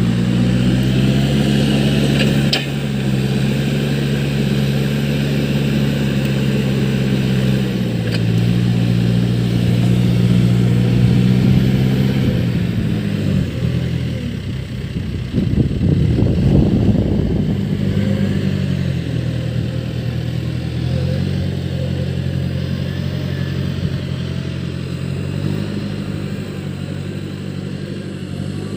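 Case backhoe loader's diesel engine running under work, its pitch stepping up and down several times as the revs change, with a rougher, noisier stretch around the middle.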